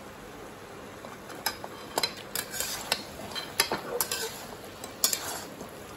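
A metal spatula scraping and knocking against a nonstick kadai while fried paneer cubes in thick sauce are stirred, in a handful of irregular strokes.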